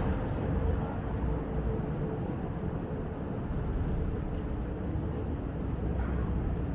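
City street traffic: a steady low rumble of passing vehicles, with a faint engine hum in the first couple of seconds.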